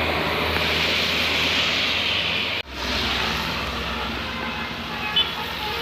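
Steady roar of a vehicle engine, broken by a sudden cut about two and a half seconds in, after which it carries on. A brief sharp blip sounds near the end.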